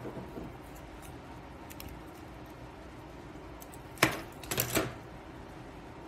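A sharp click about four seconds in, then a short cluster of clicks half a second later, against faint room tone: the plastic hand foiler being set down on a wooden tabletop.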